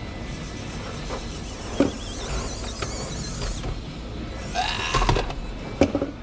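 Small Traxxas TRX-4M RC crawler's electric motor and geared drivetrain whining in short spurts of throttle, the pitch wavering, with two sharp knocks.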